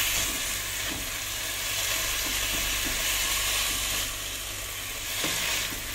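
Sliced beef sizzling as it fries in a frying pan, stirred around the pan.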